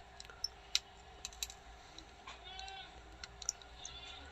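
Scattered small sharp clicks and ticks as the plastic inner panel of a Redmi 6A phone is pried and unclipped by hand, with a brief faint higher-pitched sound about halfway through.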